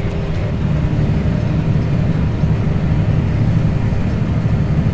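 Tractor engine running steadily under load, a low, even rumble with a faint steady hum above it.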